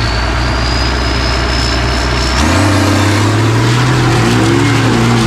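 Three-wheeler engines running at idle, then revving up sharply about two and a half seconds in as the drag race launches. Before the launch, a thin whine slowly rises in pitch.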